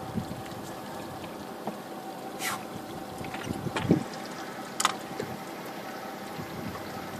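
Small boat on open water: a steady wash of water and wind around the hull, with a few knocks and clicks near the middle, the loudest a dull thump just before the halfway point.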